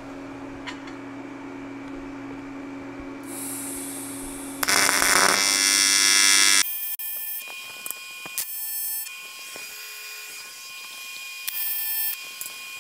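AC TIG welding arc on aluminum buzzing in several short bursts in the second half, as 6061 aluminum bungs are tacked onto a cast aluminum intercooler. Before that there is a steady hum, with a loud hiss lasting about two seconds.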